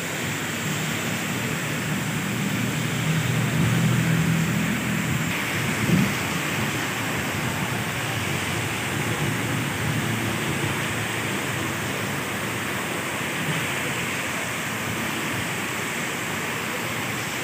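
Heavy tropical rain pouring steadily onto a flooded road and pavement. In the first few seconds a vehicle engine runs as the vehicle passes through the standing water, and there is a brief thump about six seconds in.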